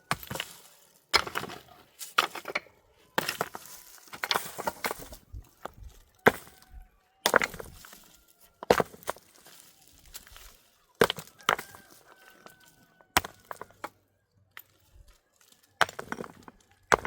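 About a dozen sharp chopping strikes, coming singly and in small groups at uneven intervals.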